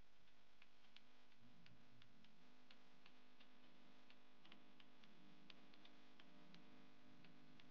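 Near silence: faint, irregular ticking and crackling from pancake batter cooking in a frying pan over low heat, over a faint steady low hum.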